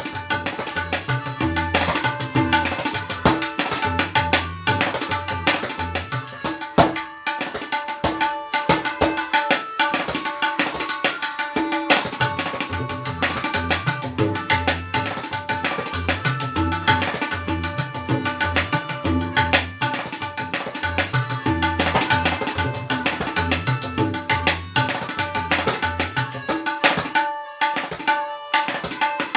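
Tabla solo in teen taal: a dense, fast stream of strokes on the dayan, with booming low bass strokes from the bayan.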